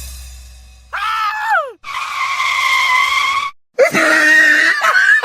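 Three high-pitched cries in a row: a short one falling in pitch, then a long steady one, then a wavering one.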